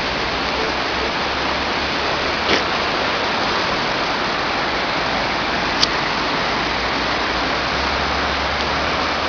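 Steady, loud rush of a flood-swollen river running high and fast, with a faint tick or two.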